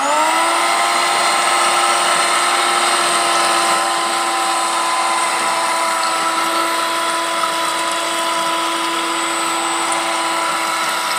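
Electric hand mixer running with a steady whine as its twin beaters blend ice apple (palmyra palm fruit) flesh in a steel bowl; the motor spins up with a rising pitch at the very start.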